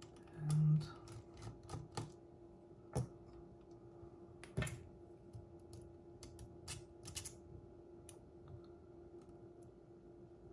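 Irregular small clicks and taps of tools and small metal parts being handled while a cassette deck's tape transport is taken apart, over a steady faint hum. There is a brief low hum about half a second in.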